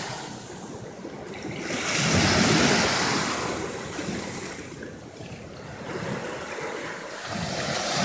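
Small sea waves breaking and washing up the shore, the surf swelling and fading in slow surges, loudest a couple of seconds in and again at the end.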